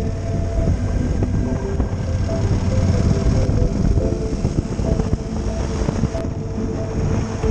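Yamaha XT1200Z Super Ténéré's parallel-twin engine running steadily while cruising, mixed with wind rush over the rider's camera.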